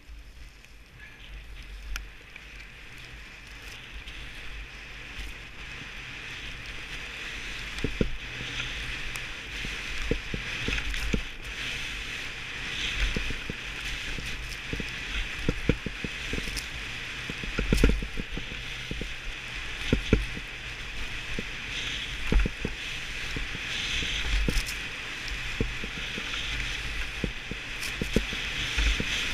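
Skis hissing and scraping over groomed snow on a fast downhill run, with wind buffeting the microphone in irregular low thumps. The rush grows louder over the first several seconds as speed builds.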